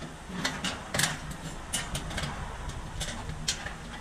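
Steady low machinery hum in a metal workshop, with about ten irregular sharp metallic clicks and taps from work on a stainless-steel silencer.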